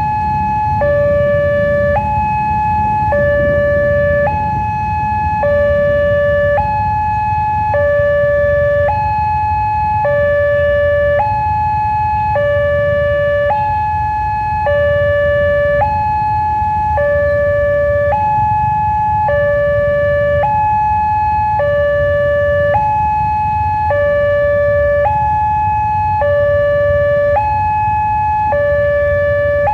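Electronic two-tone railway level-crossing alarm from the Wantech crossing signal, alternating evenly between a higher and a lower tone about once a second each, warning that a train is approaching and the crossing is closed. A steady low rumble of waiting motorbike traffic runs underneath.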